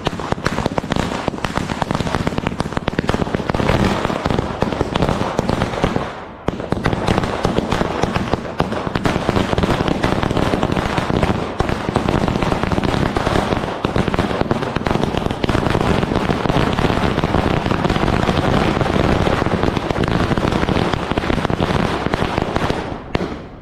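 A long string of firecrackers going off in a rapid, continuous volley of sharp bangs, with a brief break about six seconds in, and dying out just before the end.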